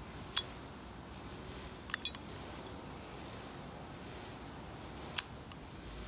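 Sterling silver Zippo lighter's hinged lid clicking open and shut: one sharp metallic click near the start, a quick double click about two seconds in, and another click about five seconds in.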